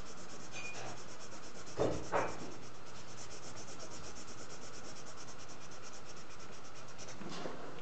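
Felt-tip marker colouring in on paper, scratching back and forth in fast, even strokes. Two short knocks about two seconds in.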